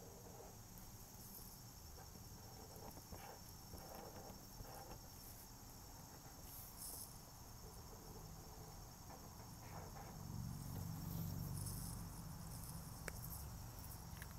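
Faint strokes of a felt-tip marker colouring on paper, over a steady high-pitched background whine. A low hum swells about ten seconds in, and a single click sounds near the end.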